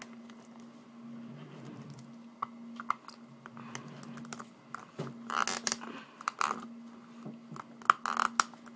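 Plastic Batman Legacy Mr. Freeze action figure being handled and stood on its display base: scattered light clicks and taps of plastic, with a few short scraping rubs in the second half.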